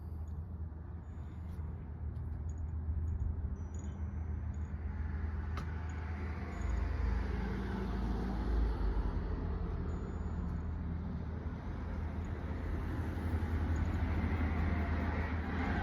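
A steady low rumble and hum with a rushing noise over it that slowly grows louder.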